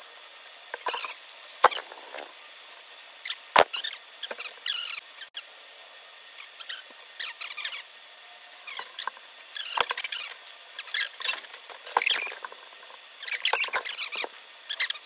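Plastic MRE pouches and drink bags crinkling and rustling in irregular bursts as they are handled, with a few sharp knocks on the table.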